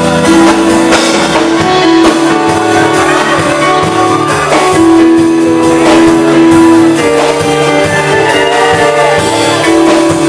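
Live band playing an instrumental break between sung verses of a slow ballad. Held keyboard chords run over a steady beat, with no voice.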